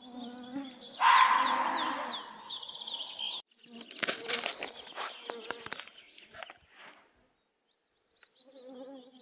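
Mosquitoes whining as they swarm close around the microphone, with small rustles and clicks of clothing and grass. Earlier, a bird sings in a run of quick repeated high chirps, and a loud noisy burst lasts about two seconds from a second in.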